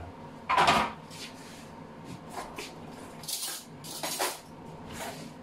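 A short loud burst about half a second in, then metal cutlery clinking and rattling in an open kitchen drawer as it is rummaged through.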